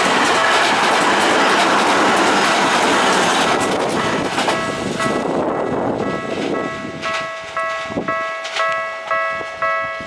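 Electric commuter train running over a level crossing, its wheel and rail clatter fading out about five seconds in. The crossing's electronic warning bell keeps ringing, clanging about twice a second with the barrier still down for an approaching train.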